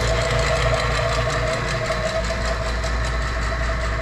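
Two-stage rotary-vane vacuum pump (JB Industries DV-6E Eliminator) running steadily with an even hum, pulling a refrigeration system down into vacuum.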